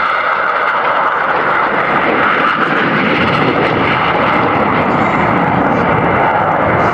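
Jet noise from two BAE Hawk T1 trainers flying a display manoeuvre, a steady loud rush that grows deeper from about three seconds in.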